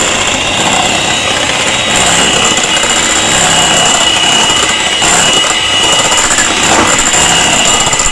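Electric hand mixer running steadily with a high whine, its twin beaters whisking a freshly added egg into creamed butter-and-sugar cake batter in a glass bowl.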